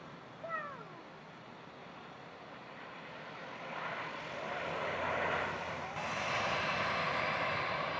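Embraer EMB-120 Brasilia's twin turboprop engines and propellers running, swelling louder from about halfway through as the aircraft rolls along the runway. A short, falling animal call, like a cat's meow, sounds about half a second in.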